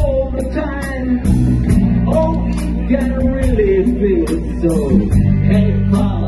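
A rock band playing live through a PA: drum kit, bass and electric guitars, with a bending, wavering lead melody on top.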